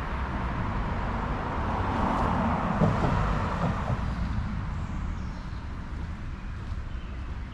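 A car passing by: tyre and engine noise swells to a peak about three seconds in and fades away, over a steady low rumble of traffic.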